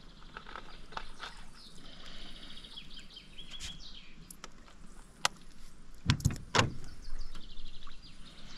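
Birds trilling and chirping in the background, a rapid twittering run about two seconds in and again near the end. About six seconds in come a few sharp clicks and two or three louder knocks, tackle being handled in the boat.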